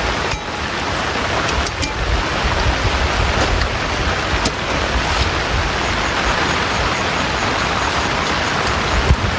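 Heavy rain falling steadily on a tent, with a few sharp ticks from single drops.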